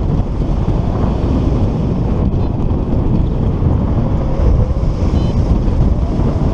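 Wind rushing over the microphone of a paraglider pilot's on-board camera in flight: a steady, loud, low rumble of airflow.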